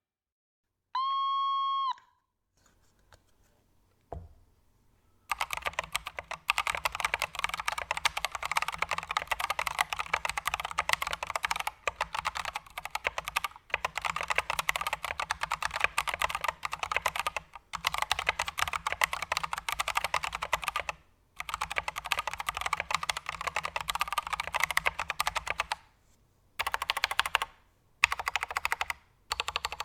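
Stock, unmodded Akko One Piece 96% mechanical keyboard with unlubed Akko Jelly Blue tactile switches, typed on quickly in long runs with brief pauses. The case sounds hollow and rattly. A steady electronic beep lasts about a second, just after the start.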